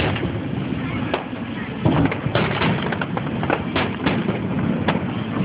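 Aerial fireworks shells bursting overhead: a string of about ten sharp bangs and pops, irregularly spaced, over a steady background of crowd voices.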